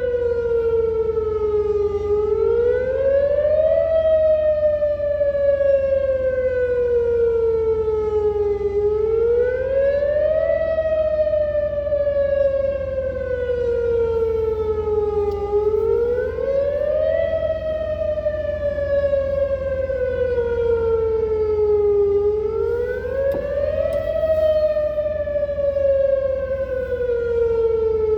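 Whelen WPS-2910 electronic outdoor warning siren sounding its monthly test tone. Its pitch rises over about two seconds, then falls slowly over about four seconds, in a steady repeating wail heard about four times.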